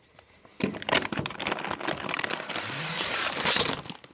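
Plastic bags of Lego bricks crinkling and rustling as they are handled, with many small clicks from the bricks inside. It starts about half a second in.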